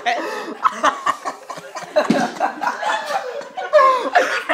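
A group of young people laughing hard together, several voices overlapping, with a louder burst near the end.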